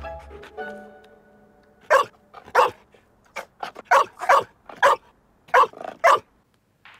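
A dog barking, a series of about ten short barks, two or three a second. Music dies away at the start.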